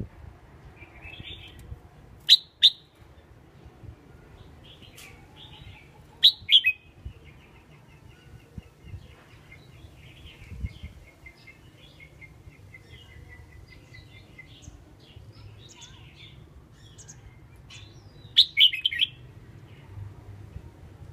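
A caged songbird, a red-whiskered bulbul, calling: loud, sharp call notes in pairs about two and six seconds in, and a quick burst of them near the end. Between these come softer chirps and a long thin trill of rapid notes that slowly falls in pitch.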